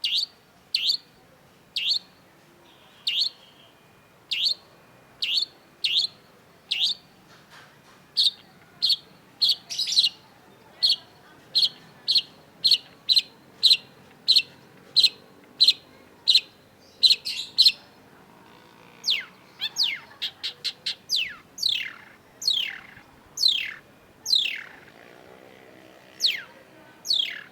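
Long-tailed shrike calling: a long series of short, sharp notes, each dropping steeply in pitch, repeated about one to two times a second. About two-thirds of the way through they break into a quick flurry, and near the end they become longer downward-sweeping notes.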